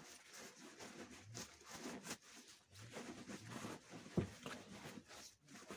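A khaki bag crumpling and rustling as it is handled and opened, in irregular soft rustles, with one sharp knock about four seconds in.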